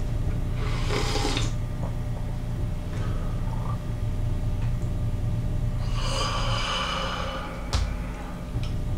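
Mackerel broth (senba-jiru) slurped from a bowl: a short sip about a second in and a longer slurp around six seconds in, with a single sharp click shortly after.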